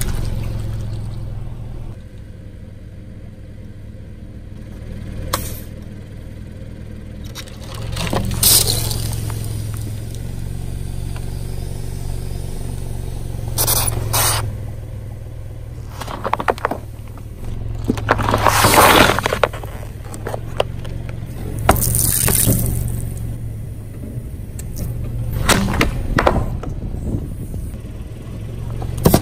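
A car tyre rolling slowly over and crushing soft and crunchy objects one after another, in about five separate bursts of crushing and scraping on concrete, over the car's low, steady engine hum.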